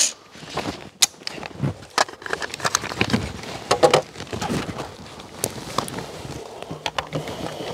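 Handling noise from an AR-15 rifle that has just been unloaded and checked: a sharp click at the start, then scattered light clicks and rustling, with a faint voice briefly in the background.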